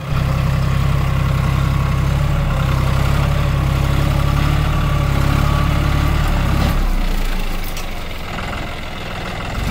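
John Deere 5050D tractor's three-cylinder diesel engine running under load as its front dozer blade pushes earth. The engine note drops and gets quieter about seven seconds in, then picks up again near the end.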